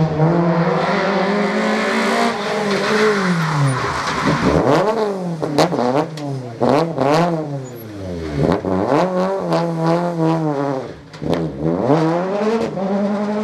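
Rally car engine at high revs, the pitch climbing and dropping repeatedly through gear changes. Quick rev blips come in the middle, with a few sharp cracks from the exhaust.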